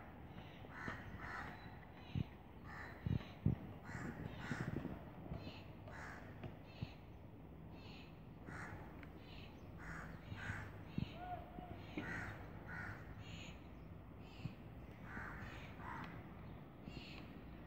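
Crows cawing over and over, short harsh calls coming about once a second, with a few sharp knocks in the first few seconds.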